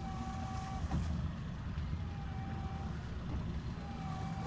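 An electronic beeper on the boat sounds a steady mid-pitched tone of about two-thirds of a second, repeating roughly every two seconds, over a constant low rumble of wind and boat noise. There is a short click about a second in.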